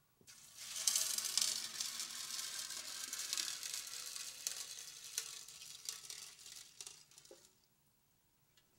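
Water poured from a pitcher into a glass fishbowl onto aquarium gravel, splashing steadily for about seven seconds. It thins to a few last splashes and drips as the pour stops.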